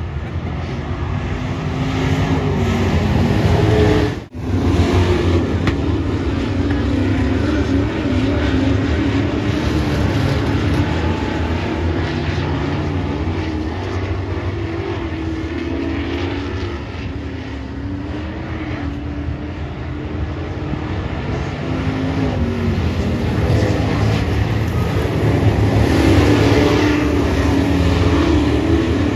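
Super Trucks racing on a dirt oval: several engines running hard, their pitch rising and falling as the trucks lap. The sound drops out briefly about four seconds in.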